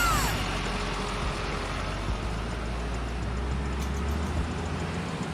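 Steady engine or motor noise, an even hiss over a low hum that stays level throughout.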